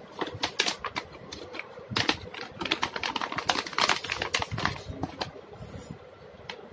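Plastic packaging bag crinkling as it is handled, a dense run of crackles that is heaviest in the middle and stops about five seconds in.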